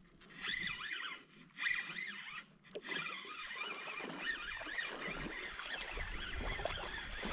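Birds calling: many overlapping chirping calls that sweep up and down. A low rumble joins from about six seconds in.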